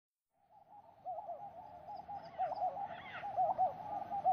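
Owls hooting: a rapid run of short, repeated, overlapping hoots that fades in from silence about half a second in.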